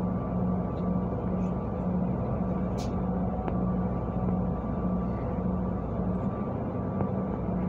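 City bus engine running at low speed, heard from inside the cabin as the bus creeps through traffic: a steady low rumble with a hum that pulses about twice a second.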